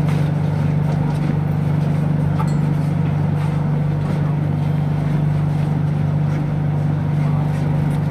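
Inside a BTS Skytrain car: the train running, a steady low hum with a few faint clicks.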